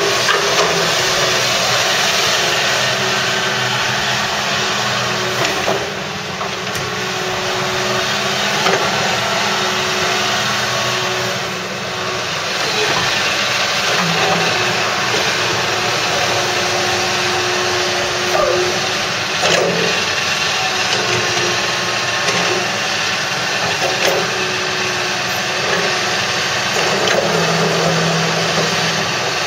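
Komatsu PC250LC hydraulic excavator's diesel engine running under load while the house swings and the boom, arm and bucket are worked, with a hydraulic whine that comes and goes.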